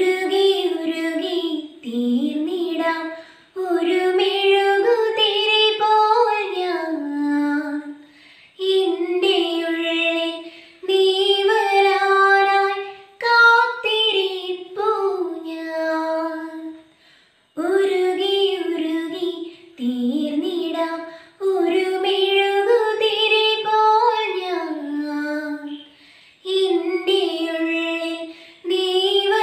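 A young woman singing solo without accompaniment, in phrases of a few seconds separated by short breath pauses.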